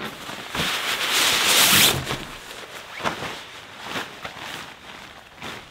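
A tarp being pulled out and shaken open, its material rustling and crinkling, loudest in the first two seconds, then a few sharp snaps as it is flapped out.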